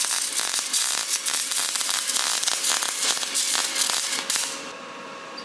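Dense, rapid crackling and popping, many sharp cracks in quick succession, which stops abruptly about four and a half seconds in, leaving a quieter steady hum.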